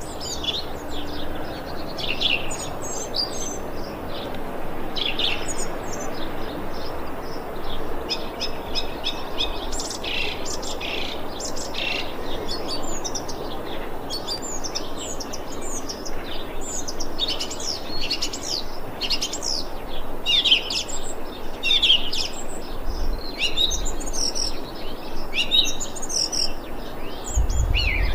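Thrush calling: a near-continuous run of short, high chirping notes over steady background noise, with a brief low rumble near the end.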